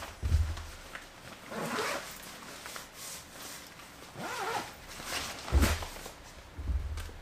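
A zipper pulled in four or five short strokes, with low bumps of handling on the microphone.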